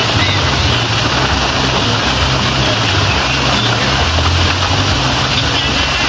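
Waterfall pouring into a rock pool: a steady, loud rush of falling water.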